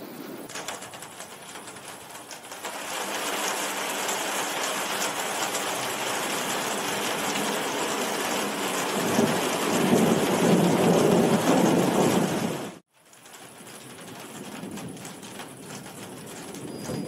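Heavy rain with thunder rumbling. The rumble swells about halfway through, then everything cuts out abruptly for a moment, and the rain comes back quieter.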